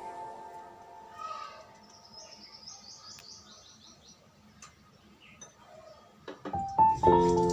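Piano background music fades out, leaving a quiet gap with faint bird chirps: a quick run of short high chirps about two seconds in. Piano music starts again near the end.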